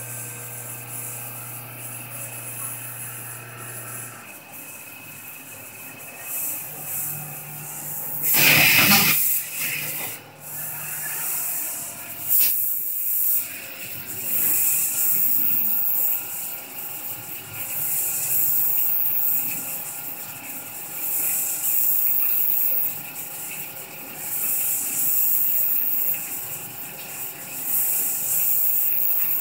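Horizontal CNC machining center milling: a steady machine hum with a few steady tones at first, a loud brief rush about eight seconds in, then the hiss of flood coolant spraying inside the enclosure, swelling and fading every two to three seconds as the cutter moves.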